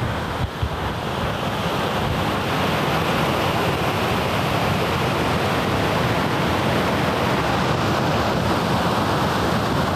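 Small waterfall cascades rushing steadily, a loud even roar of falling water.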